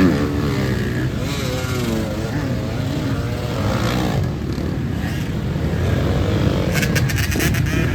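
Off-road racing motorcycle engines revving up and down continuously. A quick run of clicks comes near the end.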